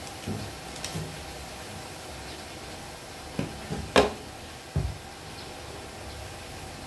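Pan of vegetables cooking over a wood fire, a steady low hiss, with a few scattered knocks and thumps; the loudest is a sharp click about four seconds in, followed by a low thump.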